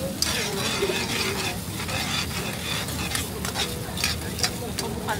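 Metal ladle stirring and scraping around a stainless steel wok in repeated strokes, over the steady sizzle of a tuslob buwa sauce mixture frying in oil.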